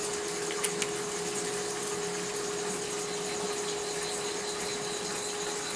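Portable induction cooktop running with a steady hum and hiss as it heats the pan. Two light clicks come near the start.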